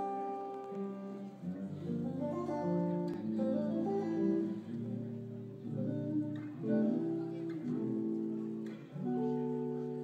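Stratocaster-style electric guitar played with a clean tone, a melodic run of single notes and chords with the harmony changing every second or so, ending on a chord held about a second before the end.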